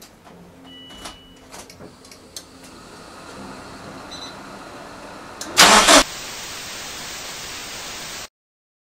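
Start attempt on the Subaru EJ205 engine after rewiring its harness: clicks and a short beep as the ignition is switched on, a whirring noise building for a few seconds, then a loud burst about six seconds in, followed by a steady hiss that cuts off suddenly.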